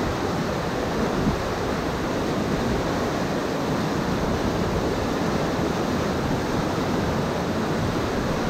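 White water rushing steadily over a drop in the river, a constant heavy roar of foaming rapids.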